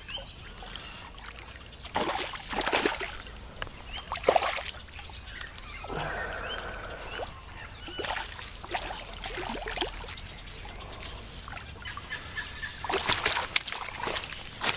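Water splashing and trickling in short bursts, as from a freshly caught fish being handled at the water's edge, with birds chirping.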